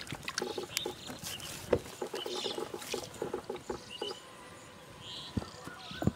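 A hand splashing in a plastic tub of water, then fingers kneading flour-and-water fishing bait in a steel bowl, with wet rubbing and light knocks against the metal.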